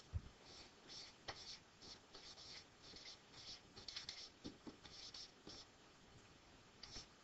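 Stylus writing a word on a tablet: a faint string of short scratchy pen strokes, pausing briefly near the end.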